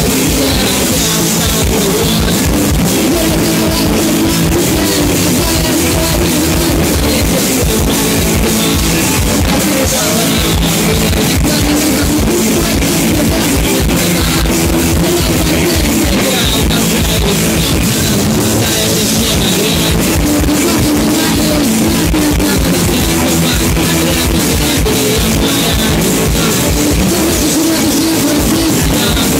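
A live rock band playing loud and without a break: drum kit and electric guitars, with a steady stream of drum hits.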